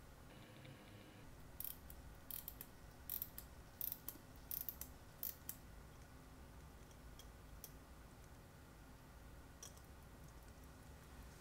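Steel tweezers clicking and tapping against the small metal parts of a wristwatch movement as the balance cock is placed: a quick run of sharp, irregular clicks for a few seconds, then a few fainter ones later.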